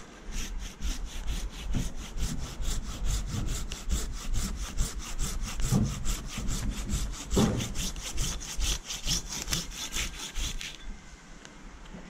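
Curved hand pruning saw cutting through a eucalyptus branch in quick, even strokes, about four or five a second, stopping about a second before the end as the branch is cut through.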